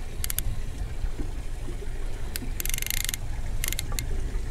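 Sea water sloshing against the side of a small boat, with a low wind rumble on the microphone. Short high rattles break in a few times, the longest about two and a half seconds in.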